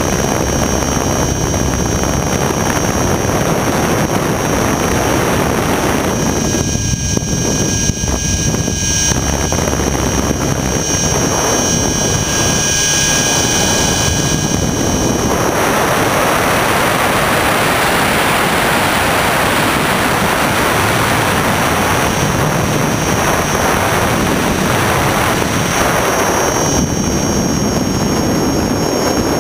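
Electric RC helicopter in flight, heard from a camera mounted on its frame: a steady high whine over loud, continuous rotor and motor noise, with wind rush that thins and swells in places.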